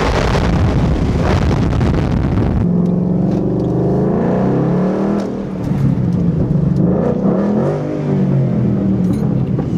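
Mustang's engine accelerating hard, heard from inside the car: the pitch climbs, drops at a gear change about five seconds in, then climbs and drops again.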